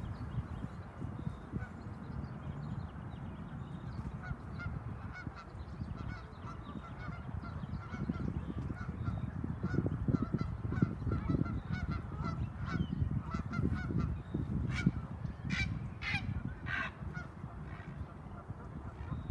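Geese honking: many short calls overlapping, with a few louder honks near the end, over a steady low rumble.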